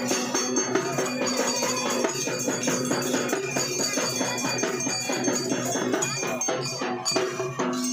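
Music with a fast, steady percussion beat over held tones.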